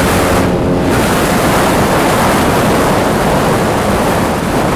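Wind rushing over the microphone of a scooter riding at speed, over the Vespa P200E 200cc two-stroke engine running under load. The engine's note shows through in the first second, then is mostly covered by the wind.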